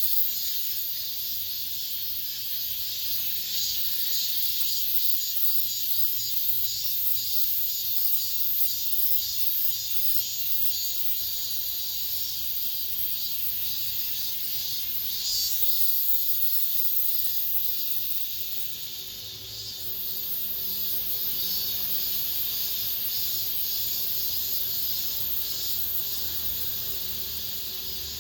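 Cicadas singing in chorus: a dense, high-pitched, finely pulsing buzz that holds steady, dipping briefly about two-thirds of the way through.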